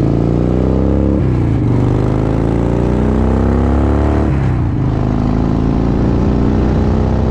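Motorcycle engine accelerating under load, its pitch climbing steadily and then dropping sharply as it shifts up, twice: about a second in and again about four seconds in.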